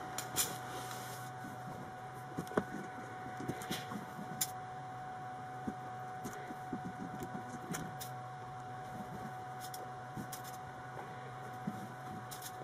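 Faint rustling and scattered small clicks of cotton fabric and waistband tape being handled and folded by hand, over a steady faint electrical hum.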